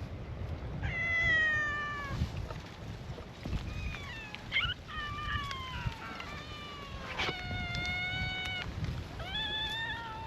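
Stray cats meowing in turn: a falling meow about a second in, a cluster of shorter overlapping calls in the middle, then a long meow of about two seconds and another starting near the end. A low rumble runs underneath.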